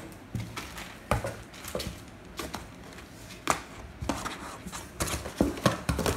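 Irregular knocks, scuffs and scratches of a kitten pouncing on and clawing at a cardboard box, the hits coming every half second or so and bunching up near the end.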